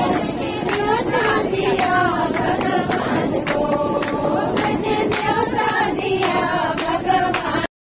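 A group of women singing a devotional song together, with hand claps keeping time at about two a second. The sound breaks off just before the end.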